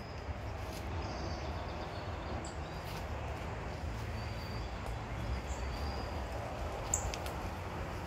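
A few short, faint, high-pitched bird chips spread a second or two apart, over a steady low outdoor background noise.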